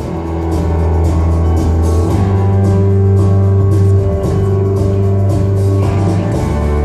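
Instrumental background music with sustained bass notes and a steady beat, played over a hall's sound system.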